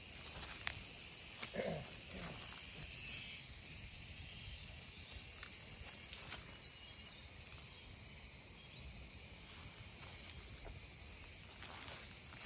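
A steady, high-pitched insect chorus, with a few faint clicks and one short, low sound about a second and a half in.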